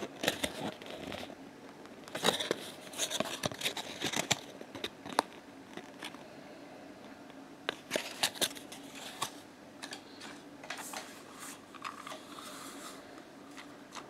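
Small card box being handled and opened by hand: its flaps and card rustle, scrape and click in several bursts, over a faint steady hum.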